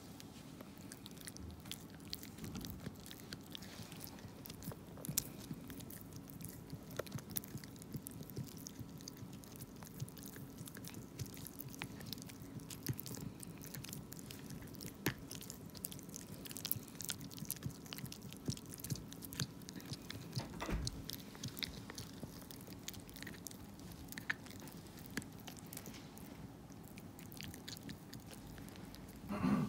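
Small dogs gnawing on hard chew sticks: irregular crunching and clicking bites all through, over a faint steady low hum.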